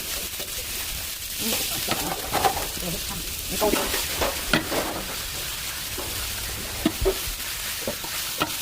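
Food sizzling in a hot pan as it is stir-fried, with a steady hiss and scattered short knocks and scrapes of the stirring utensil against the pan.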